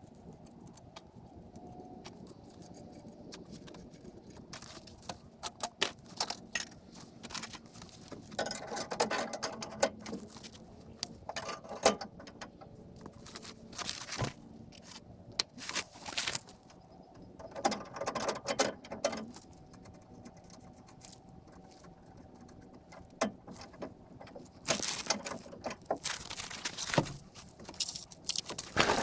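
Intermittent metallic clicks and clinks of hand tools and hardware at the truck's rear axle and leaf spring, coming in several short bursts.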